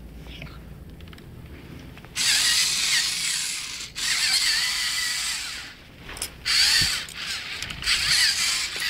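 LEGO Mindstorms NXT robot's geared servo motors whirring in several start-stop spurts of one to two seconds, beginning about two seconds in, with a high gear whine that wavers in pitch.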